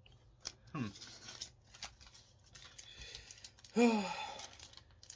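Foil Pokémon booster pack crinkling and tearing as it is opened by hand, with light rustling and clicking of cards. A short hum or murmur from the man about four seconds in.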